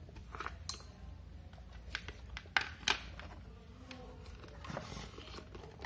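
A few sharp clicks and light taps from handling a metal-cased 12 V switching power supply and small parts, the loudest about two and a half to three seconds in, over a faint low hum.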